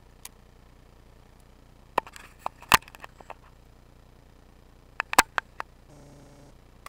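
Sharp knocks and clicks of a fishing rod and baitcasting reel being handled, in two quick clusters about two and five seconds in, followed by a brief low hum near the end.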